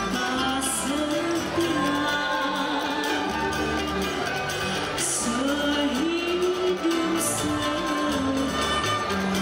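Live band music: a woman sings a melody into a microphone, accompanied by flute and violin over a low, steady backing.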